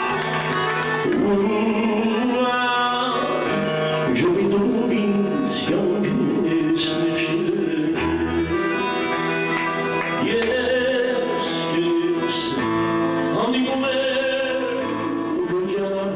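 A man singing live with a small band of acoustic guitar, cello, accordion and drums.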